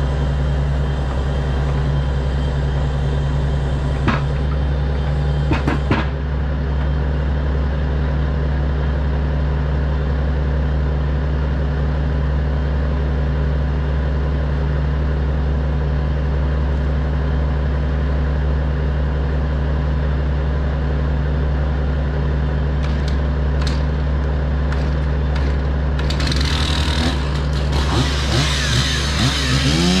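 Log truck's engine running steadily, driving the grapple loader's hydraulics, with a couple of sharp knocks about four and six seconds in. Near the end a chainsaw starts up and revs.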